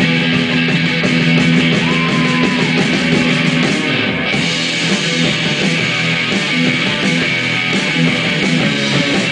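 Live rock band playing an instrumental intro: electric guitars holding chords over a drum kit, with cymbals struck in an even rhythm.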